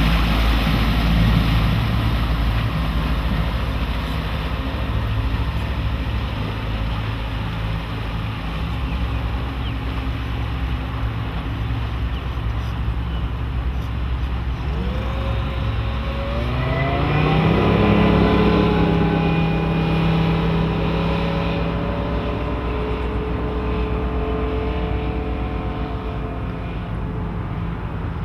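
Suzuki 175 hp four-stroke outboard on a Sea Fox 236 walkaround boat running over wind and water noise. About halfway through, the engine revs up, its pitch rising over a couple of seconds, then holds a steady higher note as the boat runs on plane.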